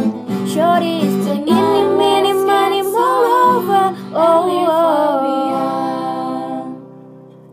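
Music: a voice singing over sustained accompaniment chords, the closing of a pop song medley. The sound fades out over the last two seconds.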